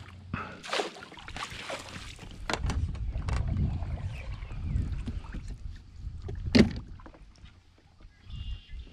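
Gear knocking against a plastic fishing kayak as the paddle and landing net are handled. Scattered clicks and a low rumble run through the middle, and one sharp knock about two-thirds of the way in is the loudest sound.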